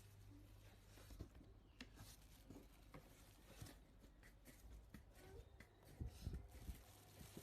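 Near silence: faint room tone with a low hum and a few soft, scattered ticks and knocks, loudest about six seconds in.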